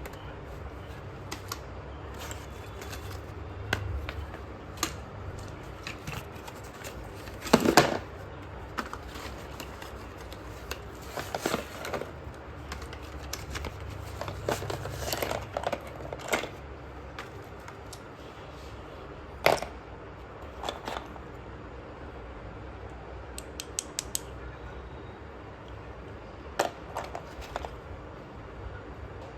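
Slate pencils cracking and crunching in scattered sharp snaps, over a steady low hum. The loudest snaps come about eight seconds in and again near twenty seconds.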